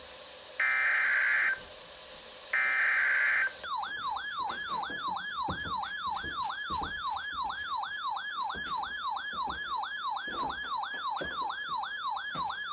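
The last two bursts of an Emergency Alert System SAME header, each a second-long burst of screeching digital data tones encoding the Winter Storm Warning. From about three and a half seconds in comes a siren-like electronic alert tone that sweeps down in pitch about three times a second.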